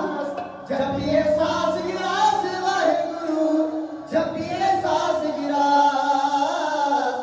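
Dhadi folk singing: male voices singing a devotional vaar together in long sung phrases, accompanied by a bowed sarangi and dhadd hand drums. Two short breaks between phrases, about a second in and again about four seconds in.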